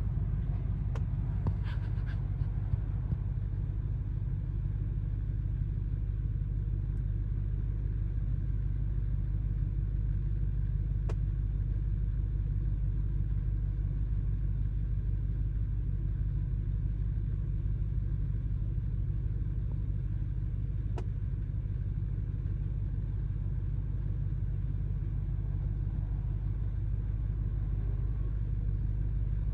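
2023 Audi RS6 with a steady low rumble, broken by an occasional faint, sharp knock, a few around the first two seconds and then single ones about ten seconds apart: the annoying knock the owner is trying to trace.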